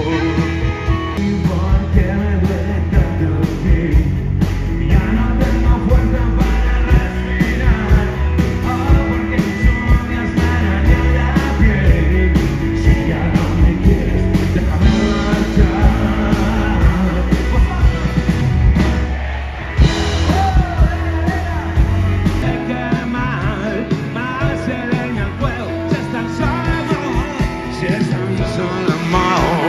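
Rock band playing live, an instrumental stretch of a song: a steady drum beat with bass and guitars, and lead lines that bend in pitch. The band drops back briefly about two-thirds of the way through.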